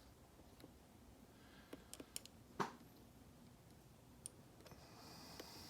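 Faint, scattered clicks of a hook pick working the pins of a pin-tumbler lock under tension, the loudest about two and a half seconds in. The clicks come from pins setting or slipping back.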